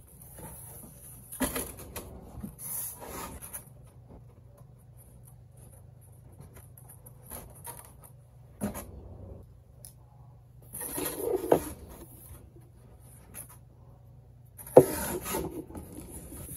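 A cardboard egg case being handled and opened on a kitchen counter: scattered rubbing, scraping and knocking of cardboard, with louder clusters near the middle and again toward the end.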